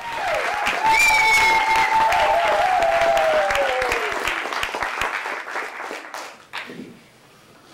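Audience applauding, with a few long, high whoops over the clapping in the first few seconds. The applause dies away about six and a half seconds in.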